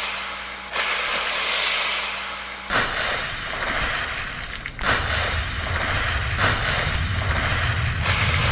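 Water spraying in repeated bursts, each starting suddenly and fading slowly; new bursts begin about a second in, near three seconds and near five seconds.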